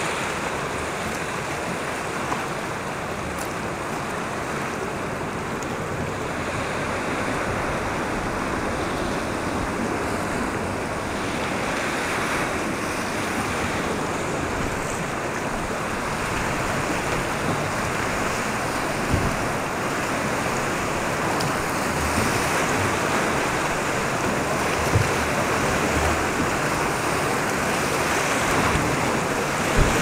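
Colorado River whitewater rushing and splashing around a rowed river boat running a rapid: a steady rush that grows louder toward the end, with a few brief thumps in the second half.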